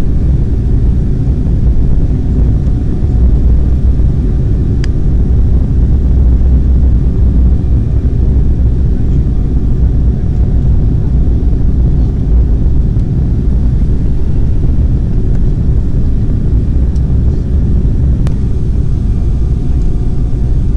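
Steady low rumble of a jet airliner's engines and airflow heard inside the passenger cabin in flight, with a faint click about five seconds in and another near the end.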